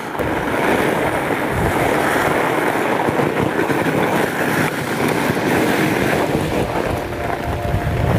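Steady loud rushing of wind buffeting the microphone during a fat-bike ride, mixed with the rolling noise of the bike on the trail.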